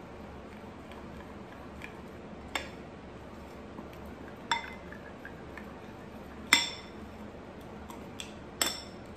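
Metal spoon stirring thick egg-and-flour dumpling batter in a glass bowl, clinking against the glass about every two seconds with a short ring after each; the loudest clink comes about six and a half seconds in.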